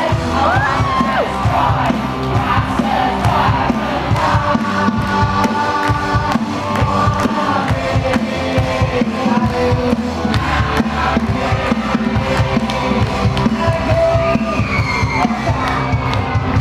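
Loud show music with a steady beat and singing, with a crowd clapping along and cheering.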